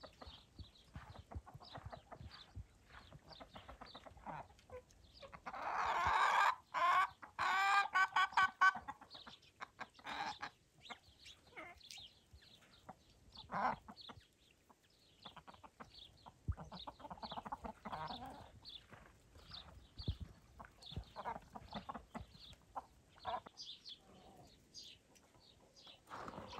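A flock of chickens clucking and calling in short bursts, with one loud, drawn-out call about six seconds in that lasts some three seconds.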